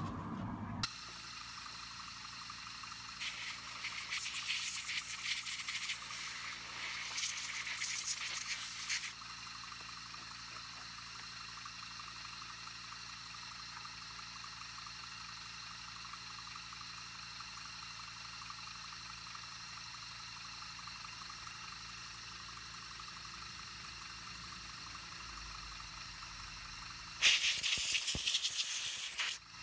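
Compressed-air blow gun blowing a small plastic carburetor part clean. A broken run of hissing blasts lasts about six seconds, then after a long lull comes a shorter, louder blast near the end.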